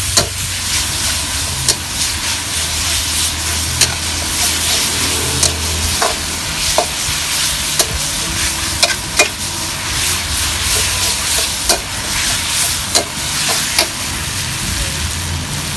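Wide rice noodles and minced pork sizzling in a hot steel wok while a metal spatula stirs and scrapes them, its edge striking the pan in a dozen or so sharp clanks at irregular intervals. The noodles have just gone in with the chilli-garlic and pork base for drunken noodles (pad kee mao).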